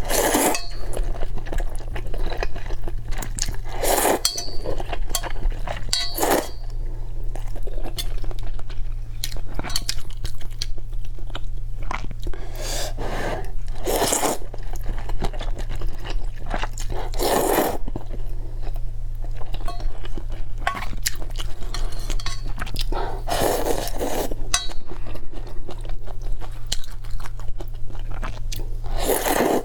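Close-miked eating of seafood: chewing, with a loud crunchy bite every few seconds and light clinks of dishes and utensils, over a steady low hum.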